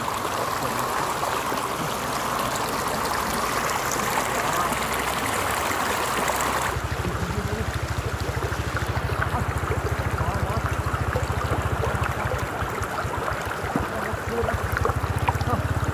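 Shallow floodwater rushing and trickling over a dirt road. About seven seconds in the sound changes: the hiss thins and a steady low rumble takes over.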